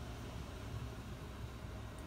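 Steady room background: an even hiss over a low hum, with no distinct event.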